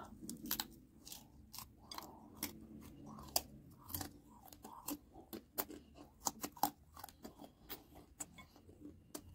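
Chewing raw guava: crisp crunches and sharp clicks following each other several times a second.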